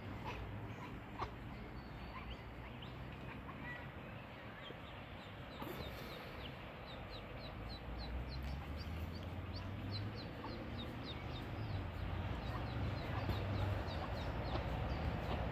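Mallard ducklings peeping: a long run of short, high, downward-sliding peeps, a few a second, setting in about five seconds in, over a low steady rumble.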